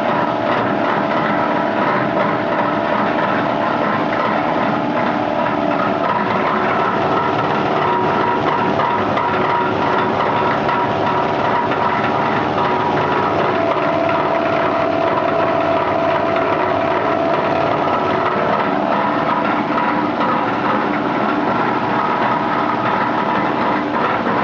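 Washing and drying machine for low-density polyethylene scrap running: a steady, loud mechanical whir with many fixed tones.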